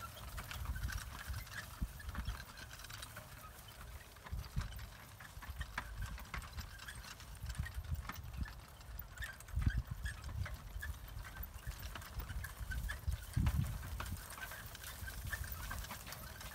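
Carriage horses trotting on grass while drawing a four-wheeled carriage: soft, irregular hoofbeats over a low rolling rumble, with small ticks and rattles throughout. Two louder thumps come in the second half.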